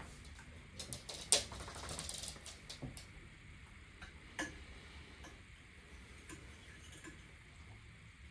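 A metal fork clinking and scraping against a ceramic plate while twirling spaghetti. The small clicks come at uneven intervals, with a sharper clink about a second in followed by a brief scrape.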